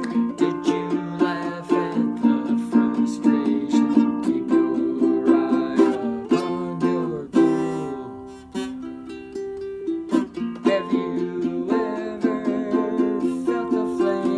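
Ukulele strummed in a steady rhythm with a man singing along. The playing thins out and drops in level for about a second around the middle.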